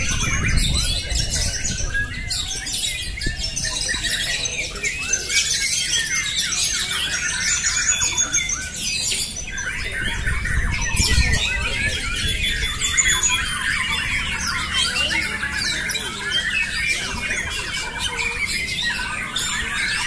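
Many caged white-rumped shamas (murai batu) singing at once in competition, a dense, unbroken chorus of overlapping whistles and calls.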